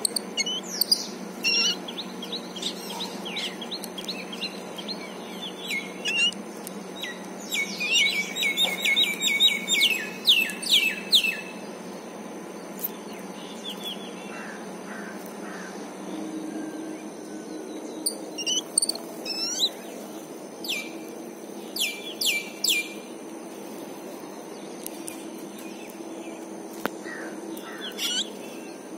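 Babblers (thavittu kuruvi) calling: runs of quick, sharp, downward-sweeping chirps in several bursts, over a steady low hum.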